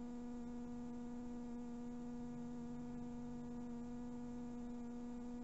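Steady electrical hum from electric toy trains running on their AC-powered O-gauge layout, with faint clicking of the wheels over the track.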